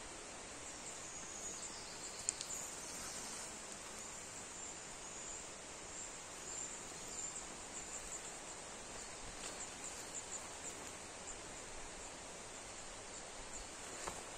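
Forest ambience: a steady hiss with thin, very high chirps repeating throughout, and synthetic fabric rustling as a waterproof bag is shaken out and handled, with a sharp click about two seconds in.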